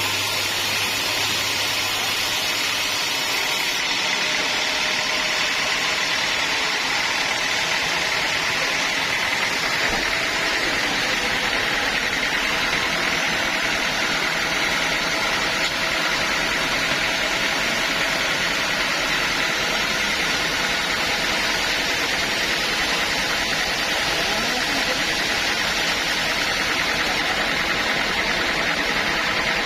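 Sawmill machinery running steadily: a continuous loud mechanical drone with a steady whine, without pauses or changes in speed.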